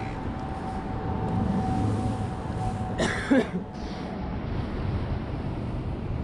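Steady outdoor city background noise, broken about three seconds in by a short, loud, throaty vocal sound.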